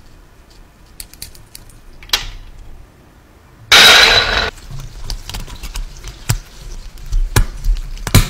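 Small sharp clicks and taps of metal filigree fittings and a glass perfume bottle being handled and fitted together. About halfway through comes one loud hiss lasting under a second.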